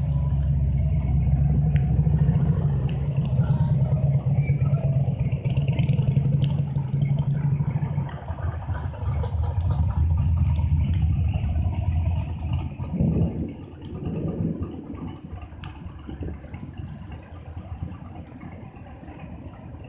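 Vehicles driving slowly past: a touring motorcycle's engine running loudly for the first several seconds, then a lifted pickup truck's engine, with a brief rev about thirteen seconds in. After that, the passing traffic is quieter.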